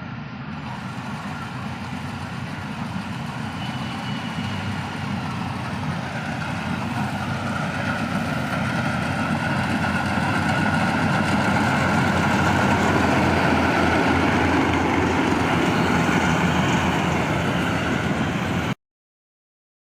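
Yanmar YH850 combine harvester running, a steady machine hum. It grows gradually louder over the first dozen seconds, then cuts off suddenly near the end.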